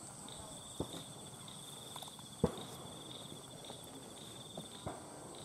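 Crickets trilling steadily, with three short sharp cracks over it, the loudest about two and a half seconds in.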